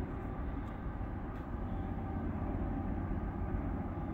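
Steady low rumble of a passed auto-rack freight train heard from a distance as it moves away down the line.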